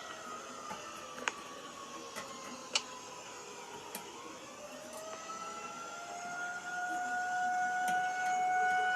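Outdoor tornado warning siren wailing: its pitch falls slowly over the first four seconds, then climbs back up and holds, growing louder near the end. A few sharp clicks sound over it.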